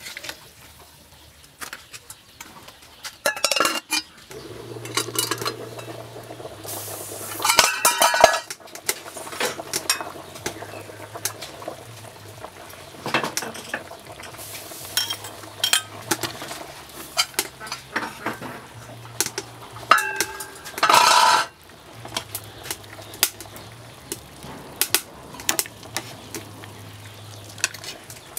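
Metal ladle clinking and scraping against an aluminium cooking pot as soup is stirred and ladled out. The clinks are scattered, with a few longer scrapes about 8 and 21 seconds in.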